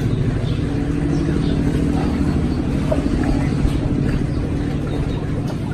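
A small engine running steadily, with a fast, even pulsing note.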